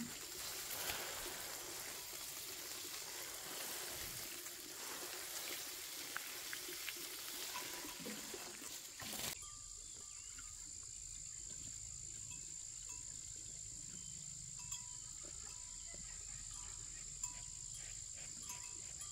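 Running water rushing steadily for about nine seconds, cut off abruptly. Then a faint steady high insect drone with a few scattered faint chirps.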